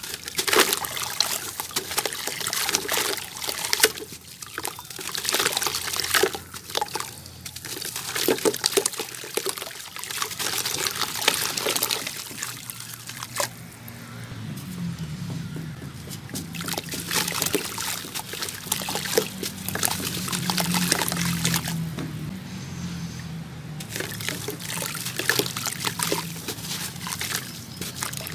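Hands crumbling a gritty, water-soaked sand-cement block over a bucket of water: crackling crunches as it breaks, with crumbs splashing and trickling into the water. About halfway through the crackling thins and the soaked cement is squished and sloshed in the water.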